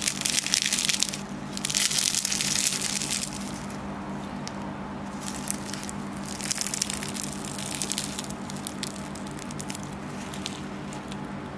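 Crisp layers of baked yufka (phyllo) börek crackling as hands break and crush a piece, in several bursts of fine crackle, the loudest in the first three seconds. The crackling is the sound of a very crisp, flaky pastry. A steady low hum runs underneath.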